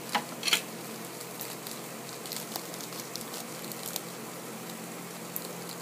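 Faint handling noise of a small plastic toy wrapper: two short crinkling rustles right at the start, then light ticks as it is cut open with scissors, over a steady low hum.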